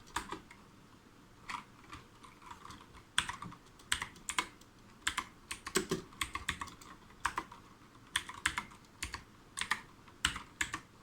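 Typing on the Armaggeddon MKA-2C, a tenkeyless mechanical keyboard with blue switches: irregular bursts of sharp, clicky keystrokes, several a second, with a few heavier bottom-out strokes.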